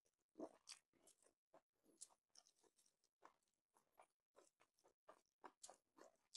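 Quiet, close-miked eating sounds: a run of soft, irregular crunches and squishes, several a second, from fingers working rice and pork curry together on a plate and from chewing.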